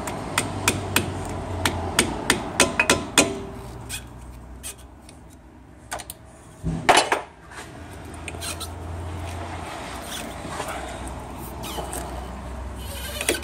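Hammer striking a blade to drive it through the rubber of a worn front wishbone (control arm) bush: sharp metal knocks several a second for about three seconds, then scattered knocks with one louder strike about seven seconds in.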